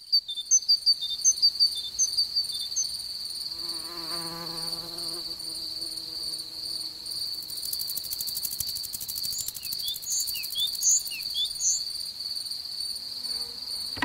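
Insects chirring: a steady high-pitched trill with short high chirps over it. About four seconds in, a flying insect buzzes past for a second or so, its pitch wavering.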